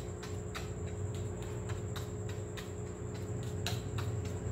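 Steel fork pricking holes in a thin rolled pizza base, its tines tapping the aluminium plate underneath in a regular run of light ticks, about three a second, over a steady low hum.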